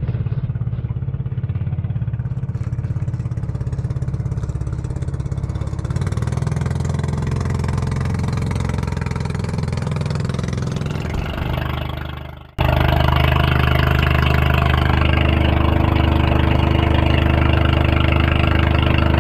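Outrigger fishing boat's engine running steadily, heard on board. About two-thirds of the way through it fades out quickly and comes straight back a little louder.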